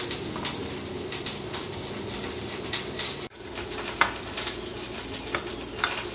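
A steel teaspoon stirring dry gram flour and ground spices in a small bowl, with a few light clicks of the spoon against the bowl, over a steady low drone in the background.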